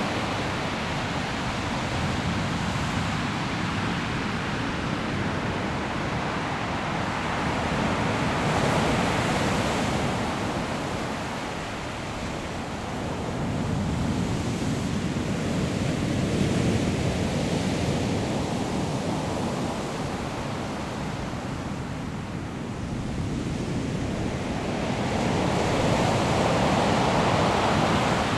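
Sea waves breaking on a pebble shore, the surf swelling and easing in a steady rhythm, roughly every eight to ten seconds, with wind.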